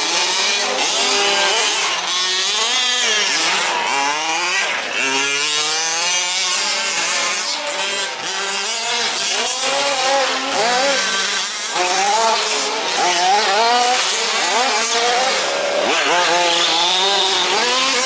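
Several 1/5-scale four-wheel-drive RC trucks' small two-stroke petrol engines revving up and down as they race, their overlapping notes rising and falling constantly.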